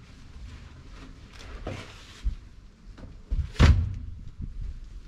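Old papers being handled and shuffled on a wooden table: a brief rustle and scattered light knocks, with one louder thump about three and a half seconds in.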